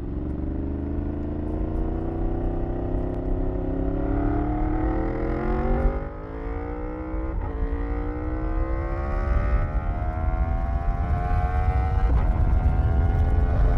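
2015 Yamaha R1M's 998 cc crossplane inline-four engine pulling hard under acceleration, its pitch climbing steadily through the revs. The pitch drops briefly at an upshift about six seconds in, with two more short breaks later as it keeps climbing.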